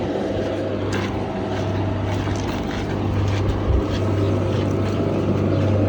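Steady low engine drone, like a vehicle or machine running nearby, with a few faint ticks over it.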